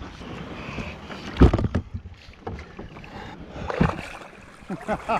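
A paddler climbing out of a plastic sea kayak in shallow water: bumps and knocks against the hull, the loudest about one and a half seconds in, over rumbling wind on the microphone.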